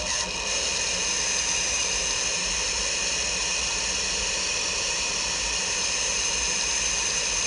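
Steady hiss of HF band noise from a FlexRadio software-defined receiver tuned to 3.995 MHz on 75-metre SSB, with no station on frequency. It is the receiver's noise floor, about −103 dBm, which the newly installed counterpoise ground has brought down.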